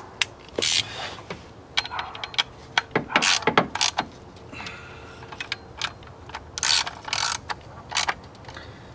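Socket ratchet with an extension clicking in short bursts of strokes, with sharp single clicks between them, as the mounting bolts of a fuel injection control module (FICM) are tightened down.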